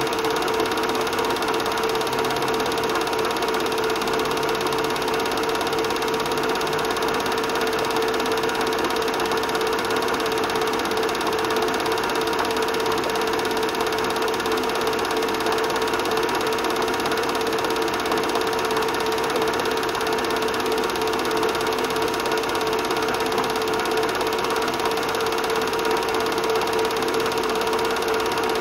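A film projector running: a steady mechanical whirring with a constant hum that does not change.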